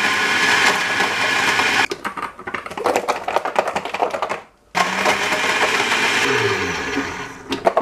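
Countertop jug blender crushing frozen fruit. The motor runs steadily, then gives way about two seconds in to rattling and knocking as the jug is shaken. It starts up again and slows down and fades near the end.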